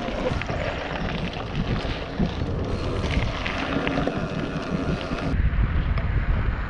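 Wind rushing over the microphone of a camera on a moving Rockrider mountain bike, with the rumble and small rattles of its tyres rolling over a gravel track. About five seconds in, the sound changes abruptly to a deeper, steadier rumble.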